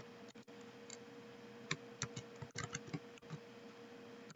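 Faint, irregular keystrokes on a computer keyboard, a few scattered clicks as text is typed, over a faint steady hum.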